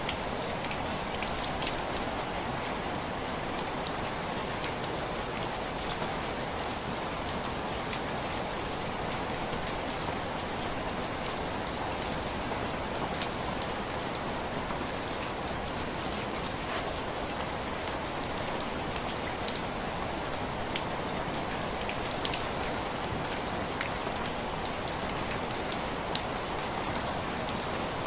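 Steady rain on window glass: an even hiss of rain with many scattered sharp taps of single drops, a few of them louder in the second half.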